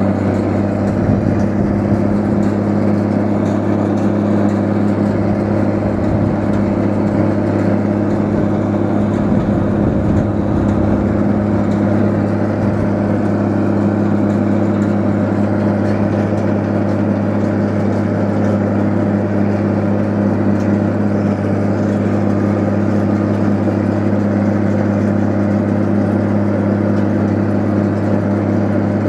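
Tractor engine running at a steady speed, driving a Hesston 5500 round baler, with an even hum that does not rise or fall.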